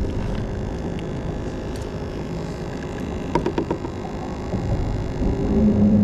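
A steady low rumble and hum, with a few faint clicks about three and a half seconds in and a steadier hum that swells again near the end.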